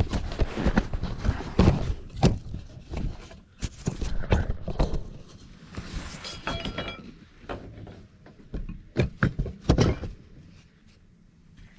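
Gear being handled at close range: a run of irregular knocks, thunks and small clinks, with a short squeaky scrape about six seconds in.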